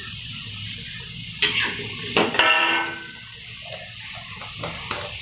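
A metal spatula knocking against a thin metal wok: a sharp click about a second and a half in, then a louder clang that rings on for most of a second, and two light taps near the end. Underneath, the low steady sizzle of green beans and carrots stir-frying.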